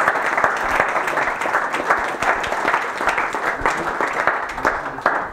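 Audience applauding steadily: many people clapping at once.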